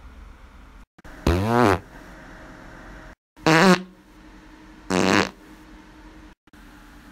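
Three short, buzzy farts, each about half a second long; the last two come about a second and a half apart.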